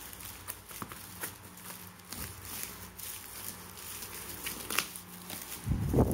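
Scissors snipping through a plastic mailer bag and the plastic crinkling as it is peeled back from bubble wrap, a run of quick sharp clicks and crackles. There is a louder handling thump near the end.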